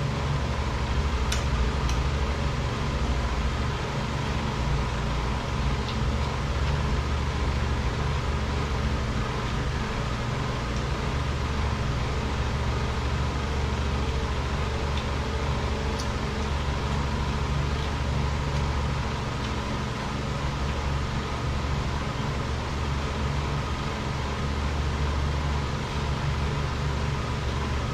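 Steady mechanical drone made up of several constant hum tones, heaviest in the low range, running without change; a few faint clicks stand out above it.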